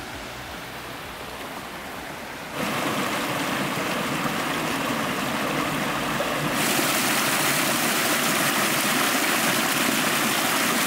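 Forest stream rushing over rocks in small cascades, a steady hiss of water that jumps suddenly louder twice, about a quarter of the way in and again a little past halfway.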